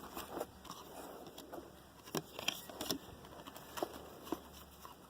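Trading cards being handled and flipped through, making irregular soft clicks and rustles.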